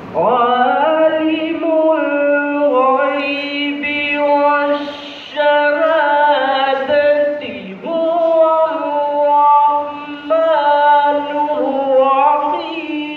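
A young male voice reciting the Quran in Arabic in the melodic, chanted style of tilawat, holding long ornamented notes in flowing phrases, with brief breath pauses about five, eight and ten seconds in.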